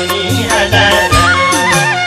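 Instrumental passage of a Nepali dohari folk song: a steady drum beat under a melody that steps up and down in held notes.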